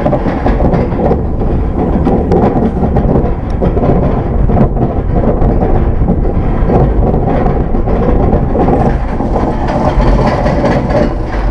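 Steel roller coaster train climbing its lift hill: a steady, loud rattling rumble from the train on the track, with wind buffeting the microphone.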